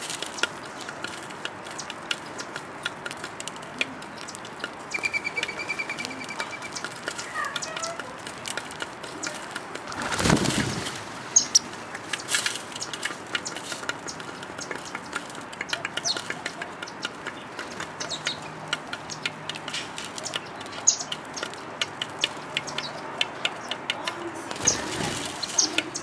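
Eurasian collared doves pecking seed off a hard ledge, a steady scatter of quick sharp taps, with a loud flurry of wingbeats about ten seconds in and a shorter one near the end. A few brief high chirps come in here and there.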